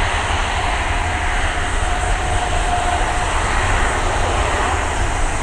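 Jet airliner engines, a loud steady rush of noise with a faint whine that fades about three seconds in.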